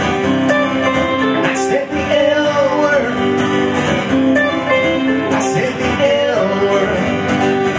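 Live country song played on acoustic and electric guitar, an instrumental passage with steady strumming and picked lead notes.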